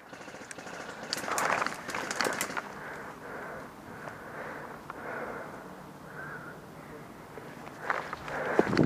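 Footsteps and gear rustling as an airsoft player moves, with faint distant voices; a burst of crunching a second or so in, and quicker, louder steps near the end as he breaks into a run.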